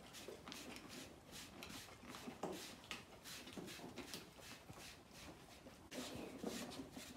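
A grooming brush swished over a pony's coat in short, scratchy strokes, about two or three a second.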